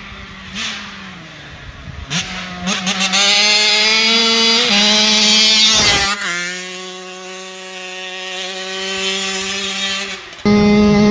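KTM SX125's 125cc single-cylinder two-stroke engine at high revs, coming closer and getting louder, then passing about six seconds in with a sudden drop in pitch and fading as the bike rides away. Near the end a loud, close engine sound starts abruptly.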